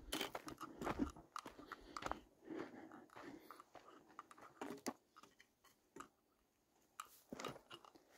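Footsteps crunching on a dry dirt trail, quick and irregular at first, then sparser and fainter, with a short burst of steps near the end.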